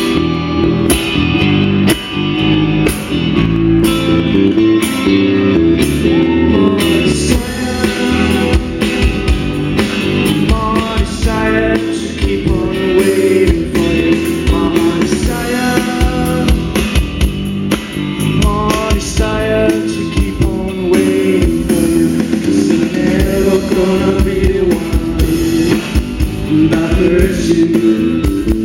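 Rock song with guitar, with a voice singing from about ten seconds in.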